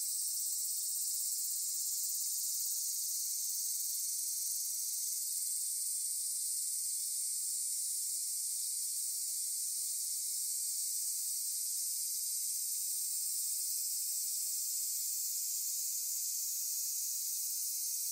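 Steady, even high-pitched hiss with no low sound under it.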